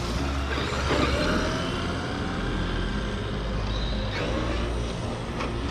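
Electric RC trucks driving, their motors whining up and down in pitch over a steady rumbling noise of running gear and tyres.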